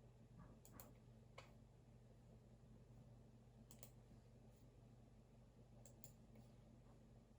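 Faint, sparse clicks at a computer desk, several of them in quick pairs, with long gaps between, over a low steady hum.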